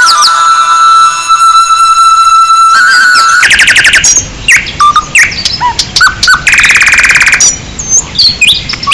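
Bird-call ringtone: a long steady electronic-sounding tone for the first three seconds, then a mix of bird chirps and short swooping calls over a steady hiss. A fast rattling trill comes about three and a half seconds in and again near seven seconds.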